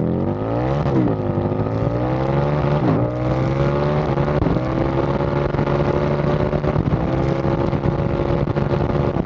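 Supercharged Harley-Davidson V-Rod V-twin engine accelerating, its pitch climbing and dropping sharply about four times as it shifts up through the gears, then running at a fairly steady speed near the end.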